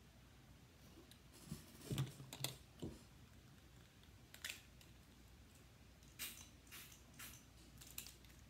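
Faint, scattered clicks and light taps from handling a small plastic object, about a dozen spread out over near silence.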